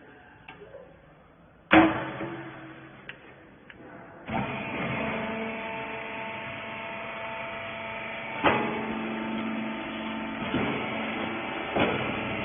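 Hydraulic rags baler machine: a loud clunk, then about four seconds in its power unit starts and runs with a steady hum of several tones, broken by three more clunks.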